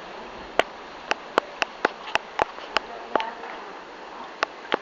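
Sharp clicks or knocks, about a dozen at uneven intervals and bunched in the middle, over a steady hiss of rain.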